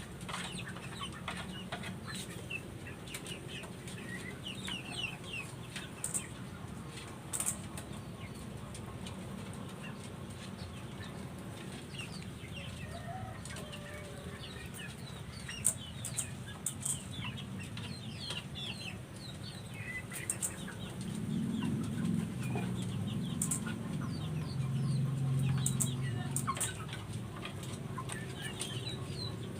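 Chickens clucking and cheeping, with wing flapping and handling noise from a chicken held to be dosed with a herbal paste. The handling noise grows louder about two-thirds of the way through.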